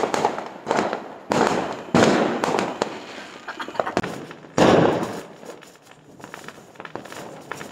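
Firecrackers and fireworks going off in quick succession: sharp bangs with crackling between them, the loudest about two seconds in and again just before five seconds, thinning out near the end.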